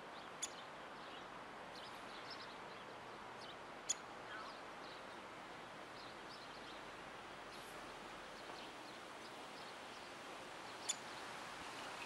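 Steady outdoor background hiss with faint, scattered high chirps of small birds, broken by three sharp clicks about half a second, four and eleven seconds in, the one near four seconds the loudest.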